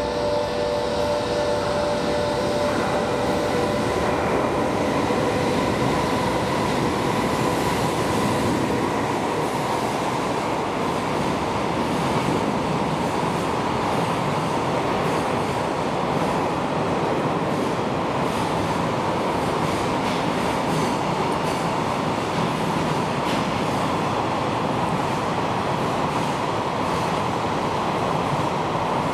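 A JR Freight container train runs through behind an EH500 electric locomotive. The locomotive's steady tones fade within the first few seconds, then the container wagons give a long, even rumble with a steady high squeal from the wheels.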